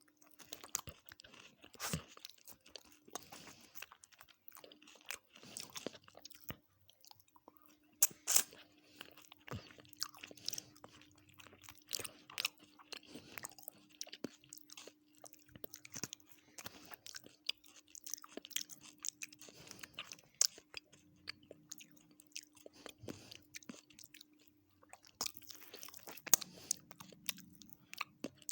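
Close-miked eating of chicken biryani with raita and salad: irregular chewing, crunching and wet mouth clicks. A faint steady hum runs underneath.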